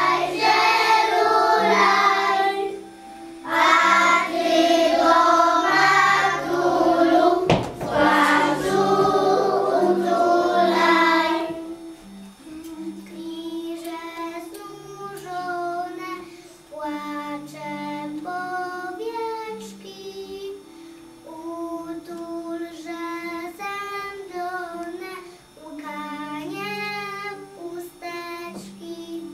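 Group of children singing a Christmas carol over a musical accompaniment with steady low notes. About twelve seconds in the full singing drops away and a quieter melody line carries on over the same accompaniment; a single sharp knock sounds near the eight-second mark.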